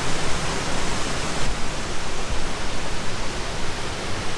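Waterfall in monsoon flood: a steady, even rush of falling water.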